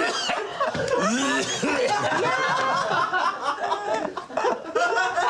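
Several people laughing and exclaiming over one another, with chuckles and snickers.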